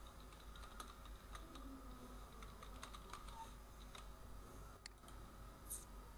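Computer keyboard typing: a run of faint, irregular key clicks, with a somewhat louder click near the end.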